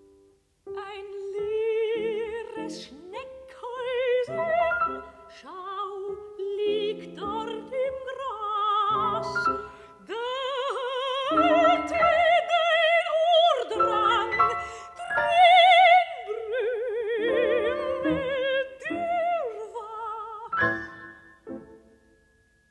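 Soprano singing a German art song (Lied) with a wide vibrato over piano accompaniment; the music ends and dies away about a second before the close.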